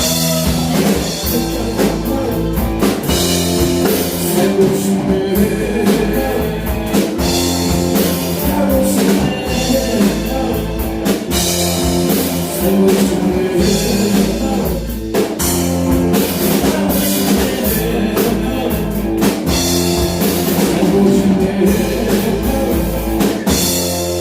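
Band music in a rock style: electric guitar over a drum kit keeping a steady beat.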